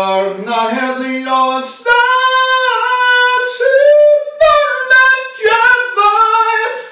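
A man singing unaccompanied in a high voice, holding long notes that slide from pitch to pitch, in phrases broken by short pauses for breath.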